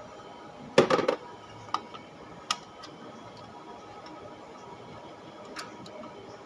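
Metallic clinks and clicks of hand tools and loose bolts as valve cover bolts are taken off: a quick cluster of clicks about a second in, then a few single taps.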